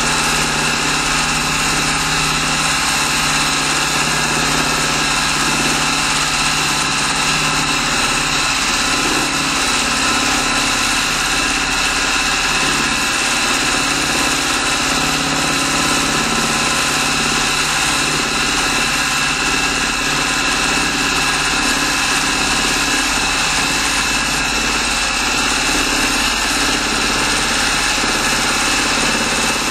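Juki sewing machine running steadily without pause while quilting, its needle stitching through the quilt layers with a constant mechanical hum.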